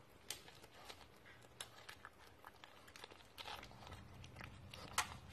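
A pug gnawing on a chew stick: faint, irregular clicks and crunches of teeth working the chew, with one sharper click about five seconds in.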